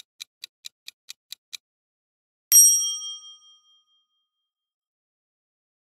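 Quiz countdown timer sound effect: a clock ticking quickly, about four to five ticks a second, stops about a second and a half in. Then a single bright bell ding about two and a half seconds in rings out for about a second, marking the end of the countdown.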